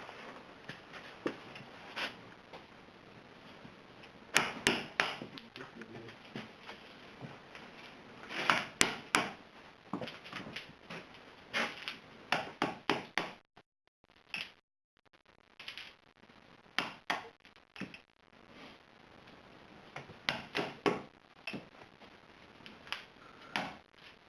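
Firewood being handled and stacked in a fireplace firebox: irregular hollow knocks and clacks of split logs and kindling against each other and the brick, in clusters of several knocks at a time.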